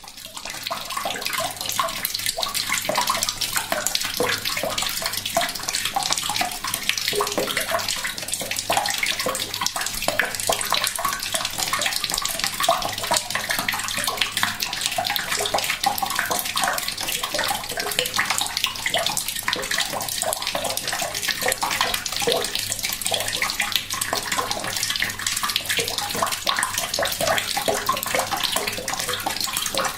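Tap water running at a gentle trickle into a bucket, a steady splashing and bubbling as the stream hits the water already in it.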